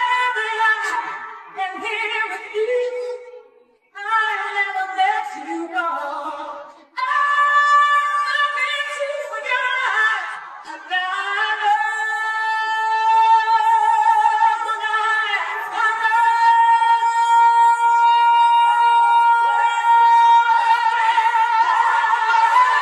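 Solo female voice singing a power ballad live, isolated from the band as an a cappella vocal track. Short sung phrases with brief breaks give way to a long held high note that lasts several seconds through the second half.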